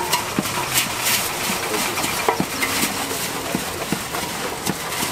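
Wooden paddles stirring and turning puffed rice in a large metal pot, with irregular scraping clicks and knocks of wood on metal over a steady hiss.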